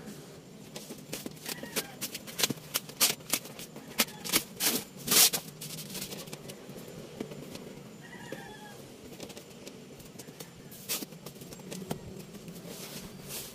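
Wrapping paper and tape on a gift box being torn and crinkled in quick, sharp rustles, loudest a few seconds in and again near the end. A few faint high calls from an animal sound in the background.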